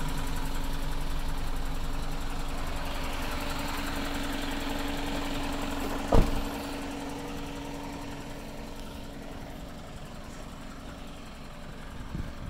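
Isuzu NQR box truck's engine idling steadily. About six seconds in, the cab door is shut with one loud slam, and the idle is quieter after it.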